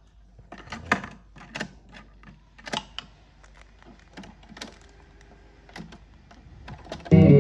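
Aiwa CDS-777 cassette deck being loaded and worked by hand: a string of sharp plastic clicks and clunks as the tape goes in, the cassette door shuts and the transport buttons are pressed. Music from the tape starts abruptly just before the end.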